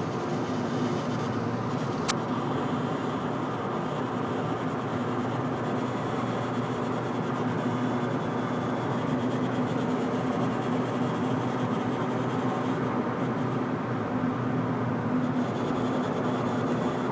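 Ford Fiesta ST making the unidentified weird noise its owner is recording: a steady drone with a constant hum, and a single sharp click about two seconds in.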